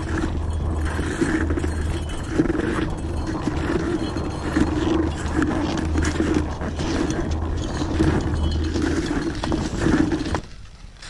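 Touring skis scraping and grinding over hard, icy snow as the skier climbs, in a steady stride rhythm with small clicks; the noise cuts off about ten seconds in.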